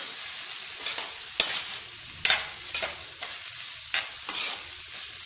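Metal slotted spatula stirring and tossing fried rice in a metal kadai, scraping and clinking against the pan at irregular strokes about every half second. The rice sizzles steadily underneath on high heat.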